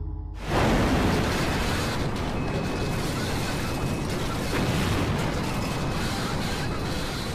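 A sudden loud rush of noise with a deep rumble, starting about half a second in and running on: a dramatized sound effect of Space Shuttle Columbia breaking up during re-entry.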